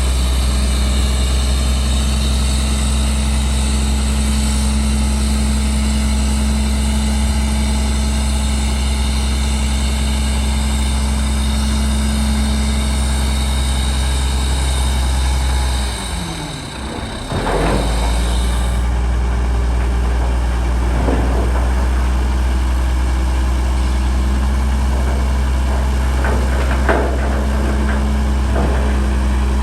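Heavy construction machine's diesel engine running steadily with a deep low hum; it briefly drops out about halfway through, then comes back, with a few light knocks later on.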